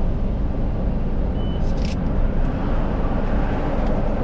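Steady low rumble of a vehicle's engine and road noise heard from inside the cabin, with a short high beep about one and a half seconds in and a few brief clicks just after.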